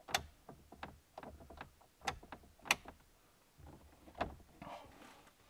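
A string of sharp, irregularly spaced clicks, about a dozen, from the dashboard switches of a Chevy pickup being worked, over a faint low hum.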